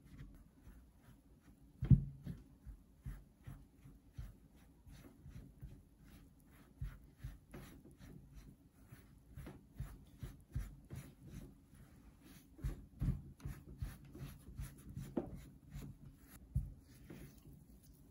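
A spatula folding flour into butter-and-egg batter in a glass bowl, bringing it together into red velvet cookie dough: irregular soft scrapes and taps against the glass with low thuds, the loudest thud about two seconds in.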